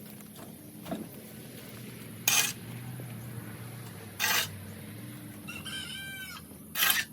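Three short, loud rasping sounds about two seconds apart, with a chicken calling in a quick run of arching notes a little before the last one.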